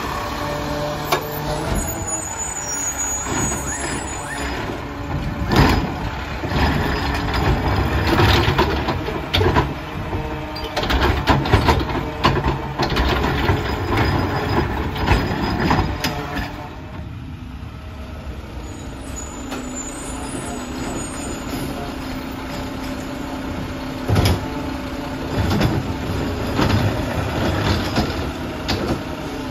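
Mack LR garbage truck running and moving along the curb, with air brake hisses and knocks from the truck.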